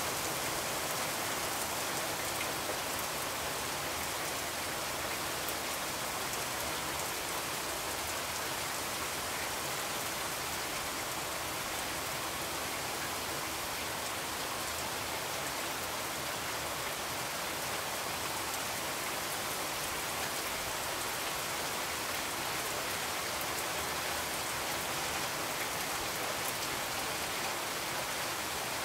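Steady, even hiss like falling rain, unchanging in level.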